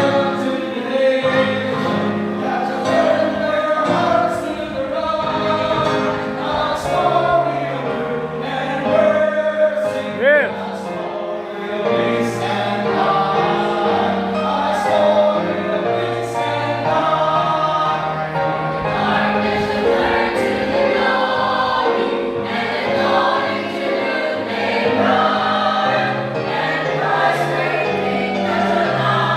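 Music with choral singing, gospel-style, playing continuously at a steady loud level.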